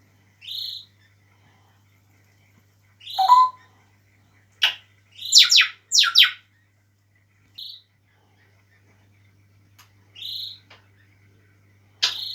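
African grey parrot calling: scattered short high chirps, with a quick run of about three sharp whistles sweeping downward in pitch around five to six seconds in, the loudest part.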